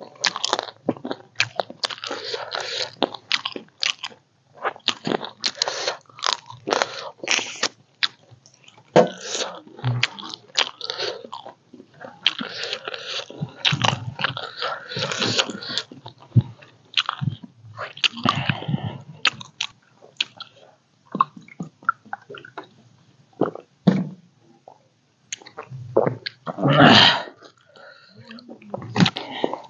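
Close-miked chewing and mouth sounds of a person eating: irregular wet smacks, bites and crunches coming in quick clusters with short pauses. Near the end there is a louder, longer burst.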